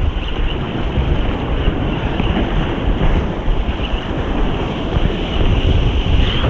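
Strong wind buffeting the microphone in gusts, over surf breaking on rocks in a storm.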